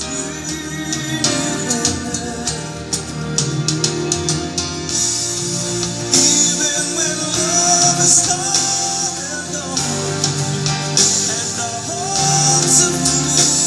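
A song with singing and guitar played from a phone through a Sansui A-5 integrated amplifier and out of loudspeakers, heard in the room at a steady, fairly loud level.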